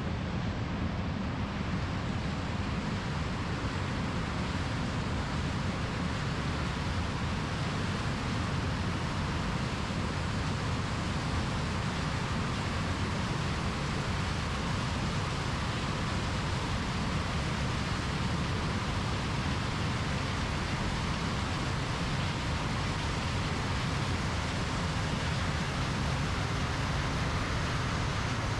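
Large John Deere diesel harvest machinery running steadily at work in the field: an even, low drone with no break.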